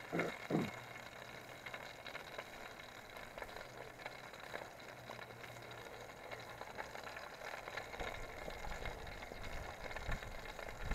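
Burger frying in an aluminium mess tin over a titanium alcohol stove: a steady sizzle with light crackles. A low rumble comes in near the end.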